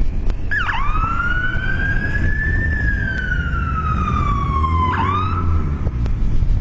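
A siren-like wailing tone that dips sharply, rises, then slowly falls in pitch, with a second quick swoop about five seconds in, over a steady low rumble.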